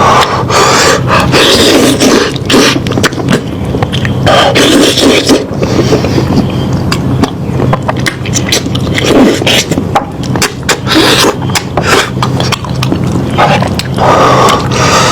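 Close-up chewing and eating of meat, with many irregular wet clicks and smacks.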